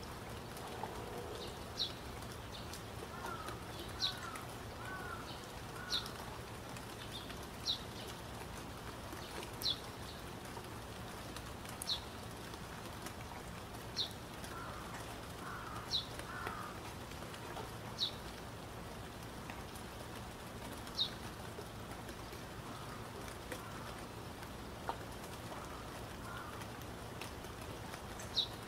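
Bird ambience: a short high chirp repeated about every two seconds over a steady hiss, with a few lower warbling bird calls now and then.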